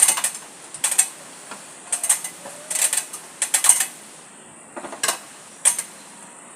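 Short bursts of metallic clicking and rattling, about one a second: hardware being handled and worked by hand during a camera installation.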